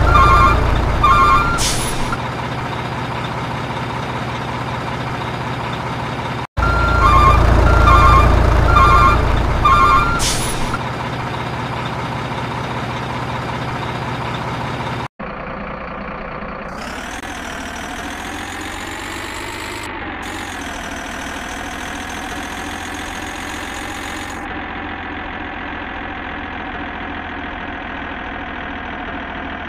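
Heavy truck sounds: a reversing alarm beeps over a diesel engine, with a short hiss like an air brake. The same stretch plays twice in a row. Then comes an engine sound that climbs in pitch, drops back and runs steadily.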